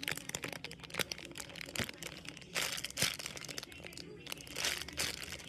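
Plastic packaging crinkling as a soft foam squishy (a Punimaru butter puppy bun) is squeezed inside it several times, each squeeze a short crackly rustle.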